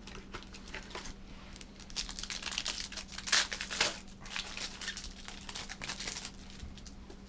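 Wrapper of a Prestige basketball trading-card pack being torn open and crinkled by hand: irregular crackling and tearing, busiest in the middle.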